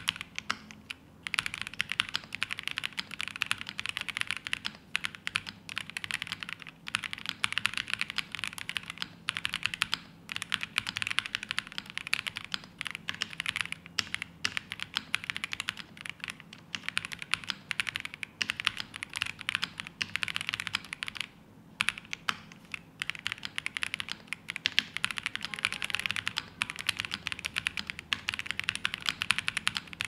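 Steady fast typing on a Percent Studio Luna80 mechanical keyboard: a dense stream of keystroke clicks, broken by a couple of brief pauses.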